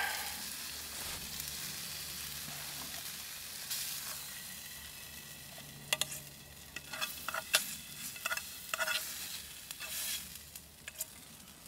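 Sirloin steak sizzling in a frying pan. The sizzle eases after about five seconds, followed by a run of sharp clinks and knocks as the steak is lifted from the pan onto a plate.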